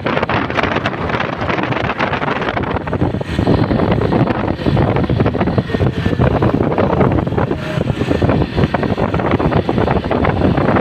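Wind buffeting the microphone over steady road and engine noise, heard from a vehicle moving at speed.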